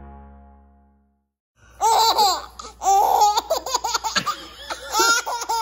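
Music fading out, a short silence, then a baby laughing in a string of high-pitched bursts.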